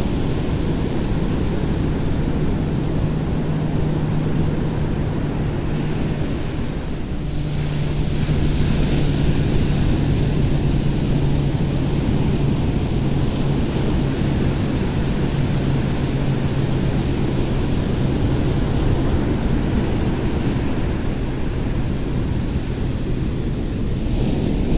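Ocean surf breaking and washing onto a sandy beach, a steady rushing noise that swells a little about eight seconds in, with wind buffeting the microphone. A steady low hum runs underneath.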